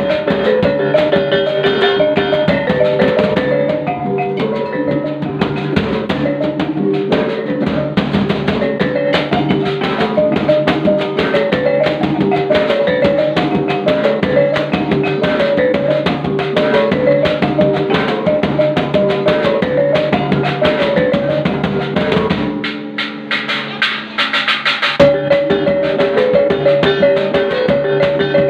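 Maguindanaon kulintang gong ensemble music: tuned gongs play a quick repeating melody over steady drum beats. About 22 seconds in the music thins out briefly, then comes back at full strength about three seconds later.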